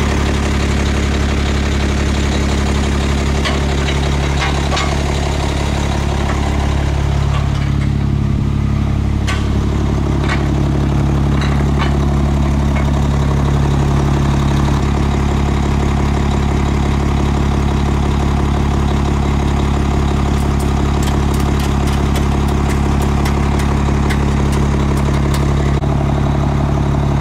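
Big diesel-pusher motorhome engine (a Navigator coach) idling steadily with a constant low hum. Over it come scattered clicks and, near the end, a quick run of ticks from the tow dolly's wheel straps being fastened.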